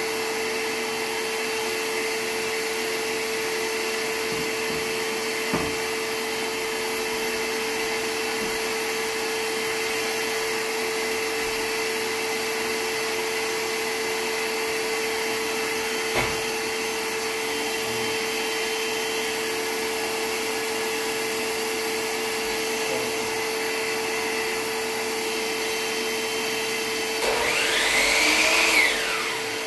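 Wet/dry shop vacuum running steadily with a constant hum, with a couple of light knocks. Near the end a miter saw motor spins up and winds back down, briefly louder than the vacuum.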